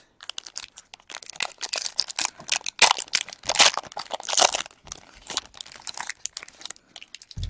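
Wrapper of a baseball card pack crinkling and crackling as it is torn open by hand, a dense run of crackles that is loudest about halfway through.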